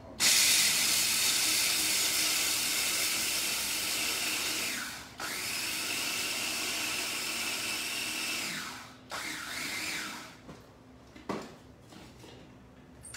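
Small electric food chopper grinding dry Honeycomb cereal into crumbs, run in three bursts: about five seconds, then nearly four, then about one second. The motor winds down briefly between bursts.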